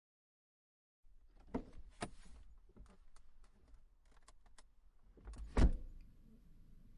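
Scattered sharp clicks and faint rustling, with one heavy thump about five and a half seconds in, after a second of silence.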